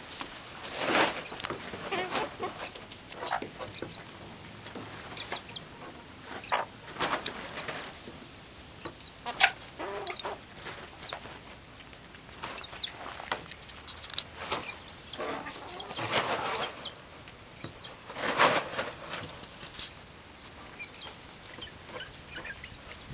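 Chickens clucking off and on, with many short high chirps scattered through and a few fuller calls.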